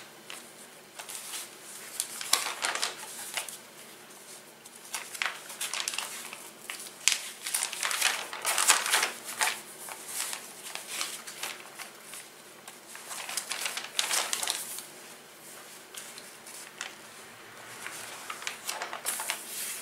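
Glossy magazine pages being handled and turned by hand: repeated paper rustles and page flips, with quieter pauses between them.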